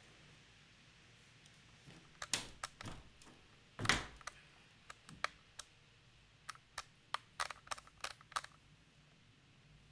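Irregular sharp clicks and taps, about a dozen scattered over several seconds, with one heavier thump near the middle.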